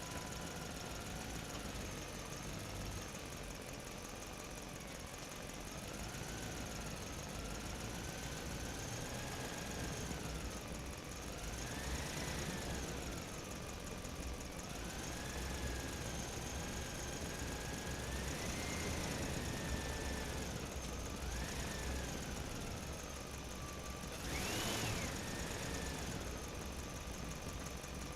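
Radio-controlled truck's electric drive motor and gearbox whining, the pitch rising and falling again and again as the throttle is worked, highest and loudest near the end, over a low rumble.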